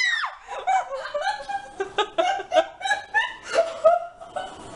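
High-pitched laughter in many short, choppy bursts, starting from the tail of a high shriek and dying down near the end.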